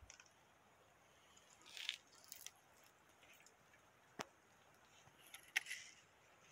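Near silence broken by a few faint, brief rustles and one sharp click, like handling or footsteps in dry brush.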